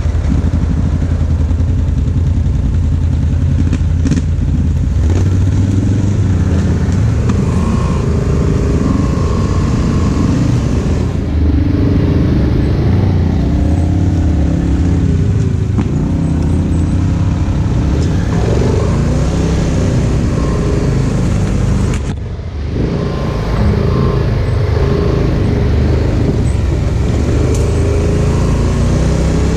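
Polaris Sportsman 1000 ATV's twin-cylinder engine running under changing throttle while riding, its pitch rising and falling. The level dips briefly about three-quarters of the way through.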